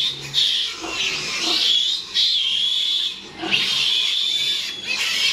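A piglet squealing in distress as it is held up by its legs: a string of long, high-pitched screams, each a second or so, broken by short gaps for breath.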